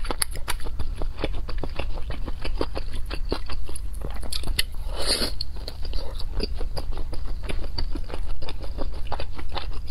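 A person chewing food with many quick, wet mouth clicks several times a second, and one louder crunch about five seconds in as a piece of fried, battered food is bitten.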